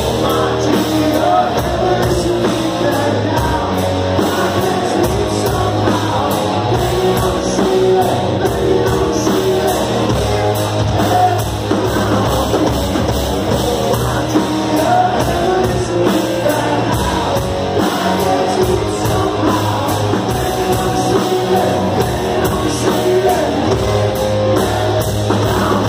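Live rock band playing loud and without a break: electric guitar, drum kit and lead vocals, with two women singing along at a microphone.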